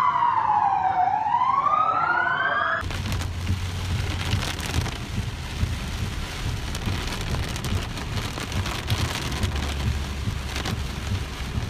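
An emergency-vehicle siren wails, its pitch falling and then rising, until it cuts off abruptly about three seconds in. After that, heavy rain pelts a car under a steady low rumble.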